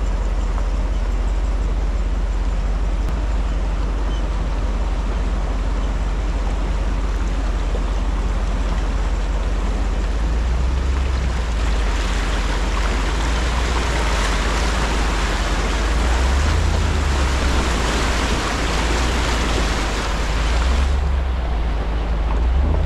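Water splashing and rushing around a pickup truck's front tyre as it fords a river; the splashing grows loud about eleven seconds in, as the wheel throws up spray in deeper, faster water, and drops off sharply near the end. A steady low rumble runs underneath.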